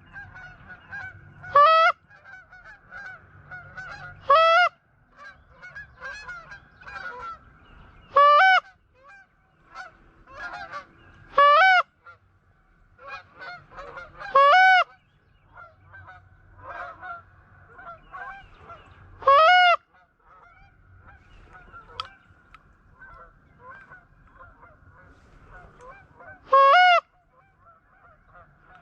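A goose honking, one loud call every two to five seconds, about seven in all, with fainter honks and calls in between.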